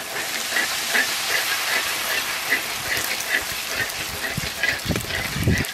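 Fuchka (pani puri) discs deep-frying in very hot oil, a steady loud sizzle as they puff up.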